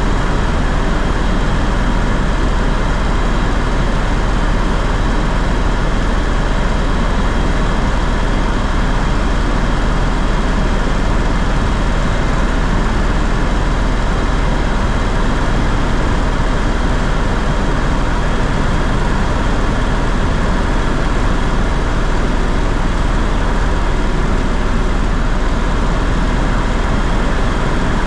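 Steady engine drone inside a tour aircraft's cabin in flight, unchanging throughout, with a thin high whine held steady over it.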